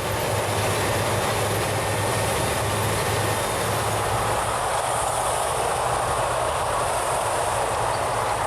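Morbark 2355 wood chipper running steadily: a constant low engine hum under a dense, even noise of wood being chipped.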